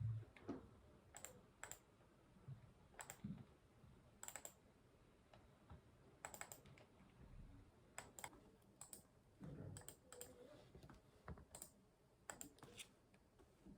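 Computer keyboard keys and mouse buttons clicking sparsely and irregularly, a click or two a second with short pauses.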